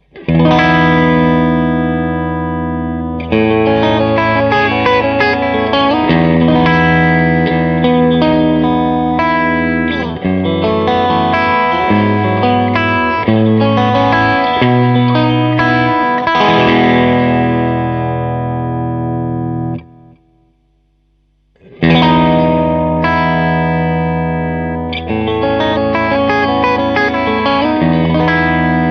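Electric guitar played through a Klon Centaur overdrive pedal: overdriven chords are struck and left to ring, changing every few seconds. About two-thirds of the way in the playing stops for about two seconds, then the chords start again.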